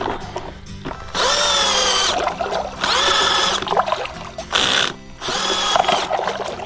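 Cordless drill stirring a bucket of clay slurry, its motor whining in several short bursts that each spin up and hold.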